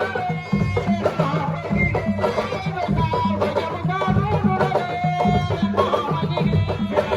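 Traditional-style music with a steady drum rhythm and a sustained melody line over it.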